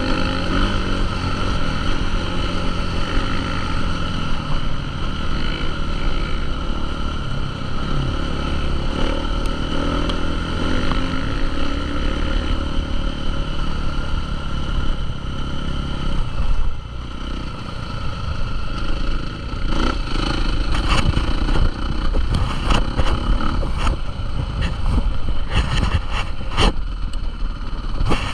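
Motocross motorcycle engines running and revving, with a run of sharp cracks and knocks in the later part.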